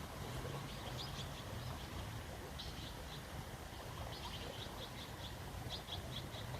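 Small birds chirping in short, quick clusters of high twitters every second or so, with a low, wavering hum underneath.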